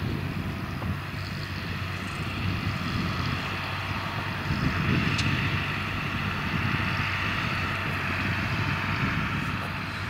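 John Deere 8410 tractor's six-cylinder diesel engine running steadily under load, pulling a New Holland BB9080 big square baler that is baling corn stalks, with the baler's machinery running along with it.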